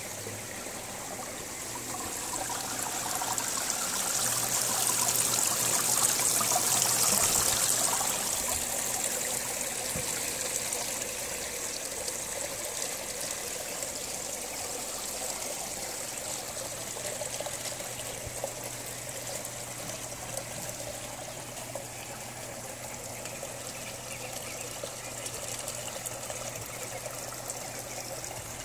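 Water trickling and splashing as it flows from PVC pipes into the blue plastic drums of a koi-pond barrel filter, a steady running-water sound that is loudest a few seconds in.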